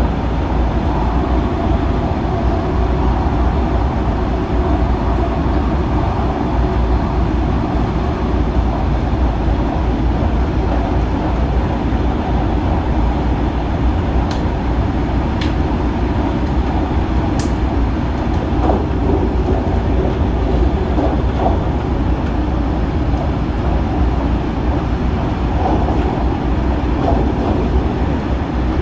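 MTR Tung Chung line CAF-built train running at speed, heard from inside the carriage: a steady, loud rumble of wheels on track with a few faint ticks in the middle.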